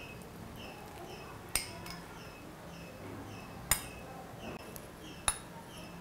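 A metal spoon clinking three times against glass while syrup is spooned from a glass bowl over dhokla. Faint high chirps repeat about twice a second behind it.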